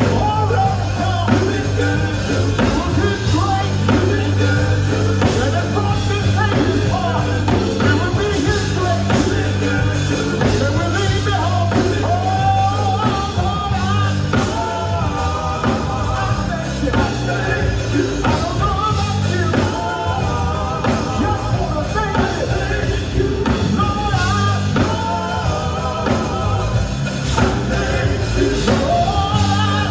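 Live gospel band playing, with drum kit, bass guitar and singing over a steady beat.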